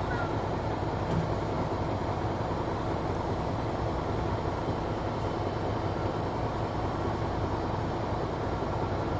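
Steady running noise heard inside a Mercedes-Benz Citaro C2 G articulated city bus on the move: a low engine drone mixed with tyre and road rumble, with no sharp events.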